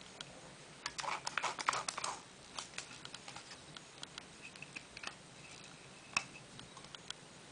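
Small mechanical clicks from a FED-2 rangefinder camera's top-plate knob being turned by hand: a quick run of ticks about a second in, then scattered single clicks.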